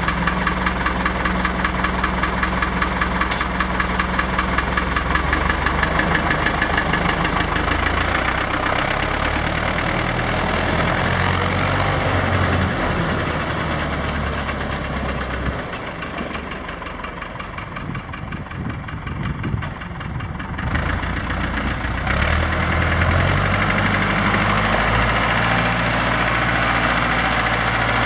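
Diesel engine of a Fendt Farmer 105SA tractor running as it drives off and comes back. It fades from about halfway through as the tractor moves away, is faintest a few seconds later, and grows louder again in the last few seconds as it returns.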